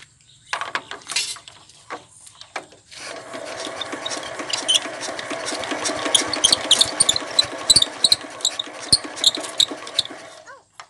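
ER550 diesel engine being cranked over for a start that does not catch. Its crank and compression strokes build into a rhythm of about three sharp beats a second, then stop abruptly near the end. This is the hard starting the engine suffers from.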